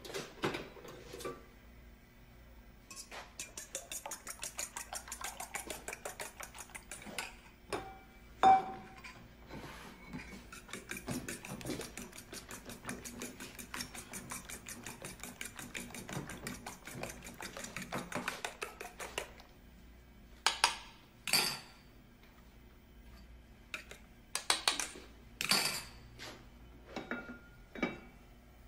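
A fork beating eggs in a metal bowl: a long run of quick, even clicks of the fork against the bowl, then a few separate clinks and clanks of metal bowl and pan at the stove near the end.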